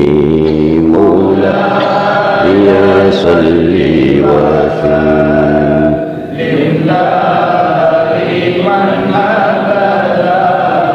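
Islamic devotional chanting in long, drawn-out, wavering notes. After about six seconds the melody moves higher and the low hum beneath it drops away.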